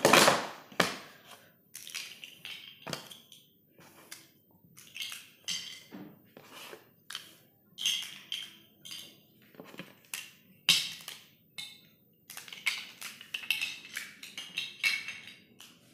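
Large plastic interlocking toy building blocks being pulled apart and set down: irregular clicks and clacks of hard plastic on plastic, the loudest right at the start.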